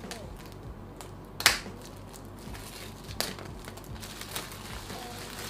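Clear plastic shrink-wrap being torn and peeled off a laptop box, crinkling, with a few sharp crackles, the loudest about a second and a half in.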